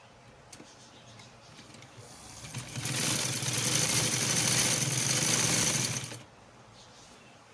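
Sewing machine stitching a seam through a layered fabric strip and lace. It builds up about two seconds in, runs steadily for about three seconds, then stops abruptly about six seconds in.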